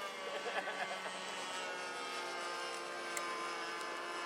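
Steady droning hum of a model aircraft engine with many even tones, sinking slightly in pitch. Faint voices are heard in the first second.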